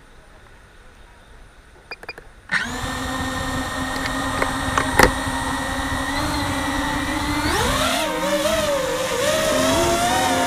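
DJI FPV drone's electric motors and propellers spinning up suddenly to a steady whine, with a sharp click a couple of seconds later; near the end the whine rises and wavers in pitch as the drone takes off and flies low.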